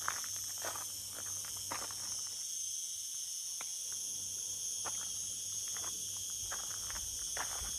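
A steady, high-pitched chorus of insects trilling, with a walker's footsteps falling irregularly beneath it.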